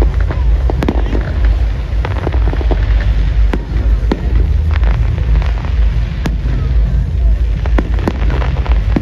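Fireworks display going off: sharp cracks and crackles at uneven intervals over a constant low rumble.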